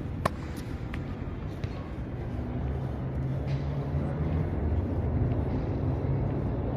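Low engine rumble of a vehicle, growing louder past the middle, with a single sharp click about a quarter second in.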